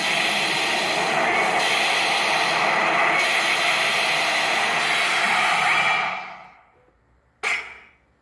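RoboCop pachinko machine's electronic sound effects during a reel spin: a loud, dense rushing noise that fades out about six seconds in, followed by a single short swoosh about a second later.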